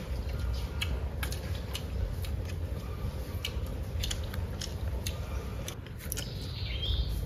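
Eating at the table: scattered light clicks of chopsticks and spoons against bowls, with chewing, over a low steady background hum. A brief high chirp sounds near the end.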